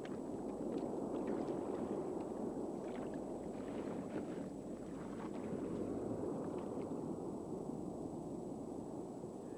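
Kayak paddles dipping and splashing in the water, with a steady wash of moving water under the strokes.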